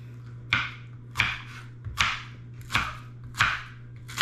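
Kitchen knife chopping boiled pork on a cutting board: six steady, evenly spaced chops, about three every two seconds.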